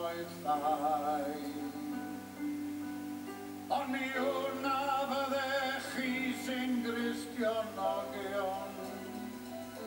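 A man singing a Welsh-language song live into a microphone, with vibrato, over instrumental accompaniment.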